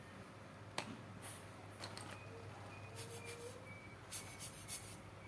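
Small tools clicking and scraping on wristwatch parts, with scattered sharp ticks and a quick cluster of clicks near the end.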